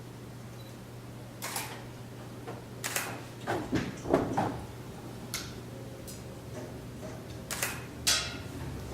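Irregular knocks and clatters of objects being handled, about eight of them, the loudest about four seconds in, over a steady low hum.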